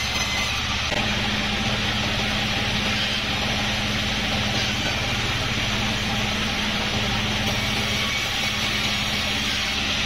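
A sawmill's large band saw running with a steady mechanical drone and hum, a low hum growing stronger about a second in.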